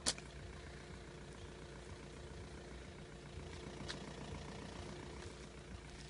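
Vehicle engine idling with a steady low hum. There is a sharp click right at the start and a fainter one about four seconds in.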